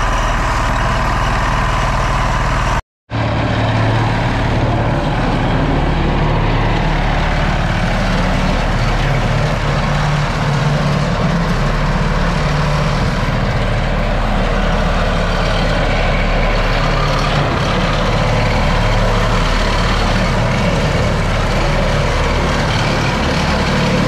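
Walk-behind roller compactor's engine running steadily as the machine compacts the soil of the footings, with a split-second gap about three seconds in.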